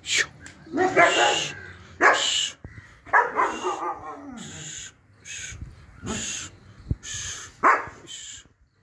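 German Shepherd dogs whimpering and yelping in several separate cries, one sliding down in pitch about four seconds in, with breathy panting between them, while tied during mating.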